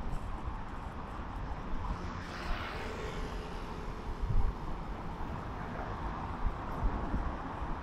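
Road traffic going by, with one vehicle passing about two to three seconds in, and wind buffeting the microphone.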